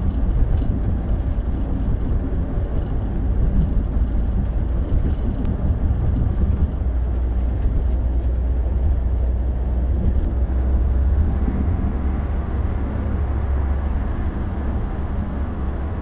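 Steady low rumble of tyre, road and engine noise heard inside a moving car's cabin.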